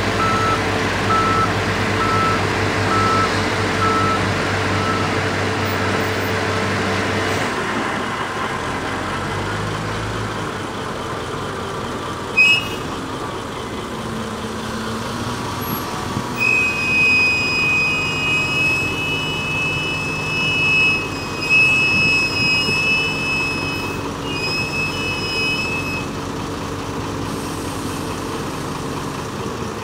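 SDLG wheel loader running, its reversing alarm beeping for the first few seconds before the engine settles to a lower, steady run. From about halfway, a high-pitched whine comes and goes for several seconds as the loader lifts a big bag of fertilizer on its jib.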